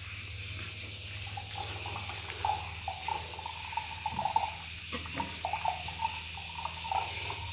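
Coconut water trickling and dripping from a freshly cracked coconut into a brass plate, in small irregular splashes.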